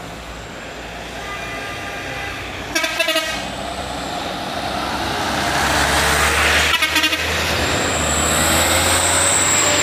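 Loaded light diesel truck labouring up a steep climb, its engine getting louder as it nears. Short horn toots come about three seconds in and again about seven seconds in.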